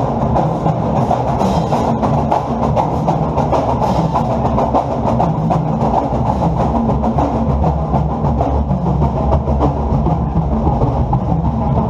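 Pep band drum section playing a marching cadence: a rapid, steady run of sharp stick clicks and drum hits over a low bass drum.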